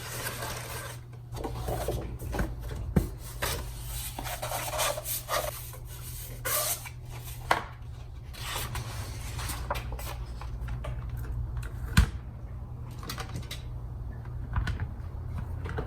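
Cardstock paper petals being handled and rubbed: irregular rustling and scraping swishes with scattered sharp clicks, the sharpest about twelve seconds in, over a steady low hum.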